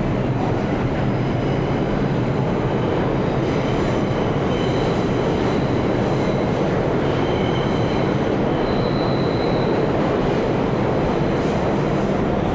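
New York City subway train running through the station with a steady rumble and clatter. Steel wheels squeal in high thin tones from about four seconds in until near the end.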